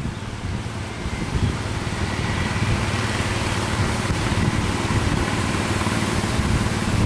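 A fishing boat's engine running steadily, its faint tone rising slightly partway through, under wind buffeting the microphone and the noise of surf.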